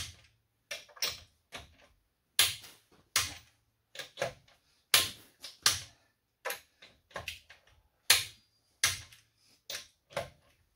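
Click-type torque wrench tightening a truck's wheel lug nuts to 110: a run of sharp metallic clicks, one or two a second and sometimes in quick pairs, as the wrench ratchets and clicks off at the set torque.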